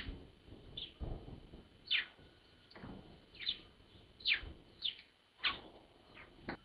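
Great tit calling: a run of about ten short chirps, each falling sharply in pitch, coming at irregular intervals of roughly half a second to a second.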